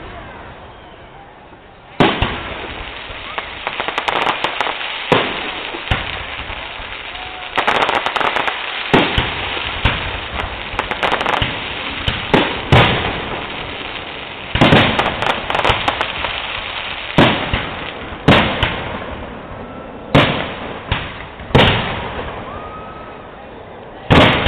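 Aerial firework shells bursting one after another: sharp bangs, each trailing off, about every one to two seconds, with a fast cluster of bangs and crackle in the middle.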